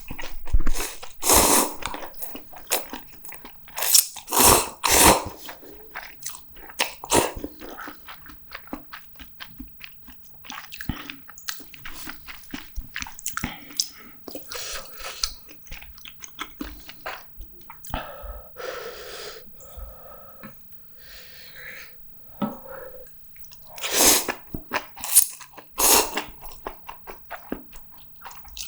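Close-miked eating sounds from a meal of instant ramen noodles and fried-tofu rice balls: steady chewing and biting with many small clicks. Louder short bursts come near the start, in a cluster around four to five seconds in, and again in a cluster near the end.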